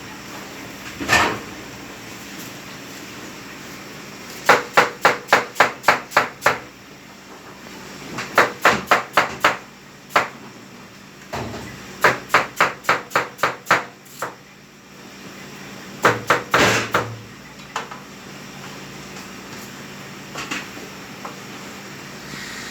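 Blade chopping on a butcher's block while beef is broken down: four quick runs of seven or eight sharp strokes, about four a second, with a few single knocks between them.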